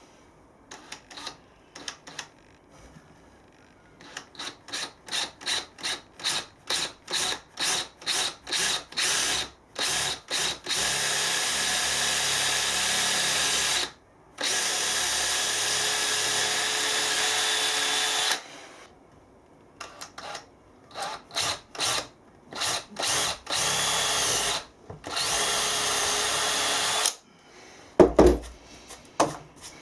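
Power drill driving screws: pulsed in quick short trigger bursts, then run in long steady stretches, then pulsed and run again. A sharp knock near the end.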